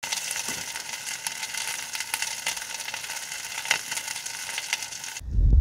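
Meat sizzling and crackling as it cooks over high heat: a steady hiss dotted with small pops. It cuts off abruptly a little before the end, followed by a short, loud low thump.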